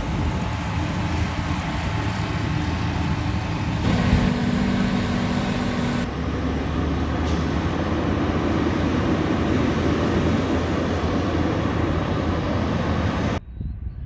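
Heavy harvest machinery running steadily under load, a dense engine and mechanical drone. The sound changes abruptly about four and six seconds in and drops away sharply near the end.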